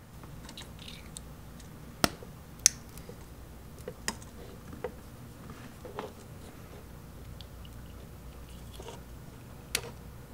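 Plastic wiring-harness connectors and leads of a 9005 LED headlight kit's CANbus decoder being handled and plugged together: scattered small clicks and rustles, the two sharpest about two and two and a half seconds in, over a low steady hum.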